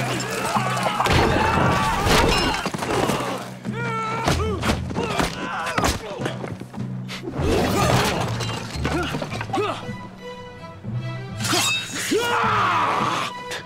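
Martial-arts film fight soundtrack: music under men's shouts and yells, with repeated hits, thuds and things smashing.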